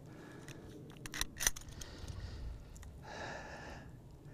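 A few sharp clicks and knocks, the loudest about a second and a half in, as a handheld digital fish scale is unclipped from a largemouth bass's jaw and set down on the boat deck.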